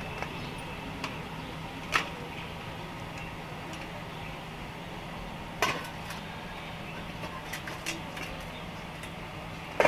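Steel wire-mesh skimmer clinking against a steel kadhai and bowl: a few sharp metal clinks, the clearest about two seconds in and just before six seconds, then several lighter ticks, over a low steady hum.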